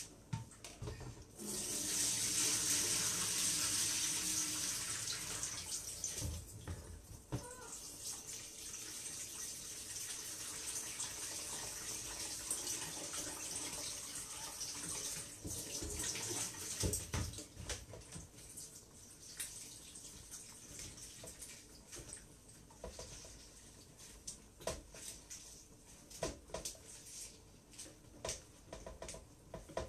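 Kitchen tap water running into a sink, turned on about a second and a half in and loudest for the first few seconds, then running more softly until a little past the middle. After it stops come scattered light clicks and knocks of bowls being handled.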